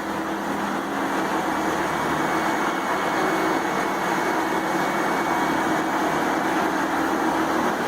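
Large Morbark drum wood chipper running with a steady, even machine noise and a constant hum.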